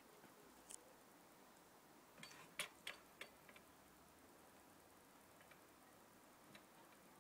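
Near silence broken by a few faint, sharp clicks, most of them bunched together about two to three seconds in.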